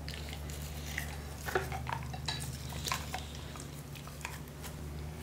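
A plastic toothbrush scrubbing a German Shorthaired Pointer's teeth: soft, scattered clicks and scrapes against the teeth and mouth, over a low steady hum.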